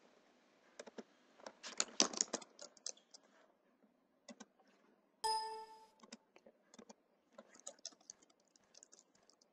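Computer keyboard typing and mouse clicks, as short scattered clicks. About five seconds in, a short ringing chime sounds once and fades within about a second.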